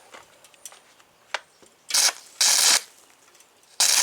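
Stick-welding arc run off three car batteries, struck in three short crackling bursts of well under a second each. The arc runs too hot with no control over the current, so the metal is built up in short goes to keep from burning holes through it.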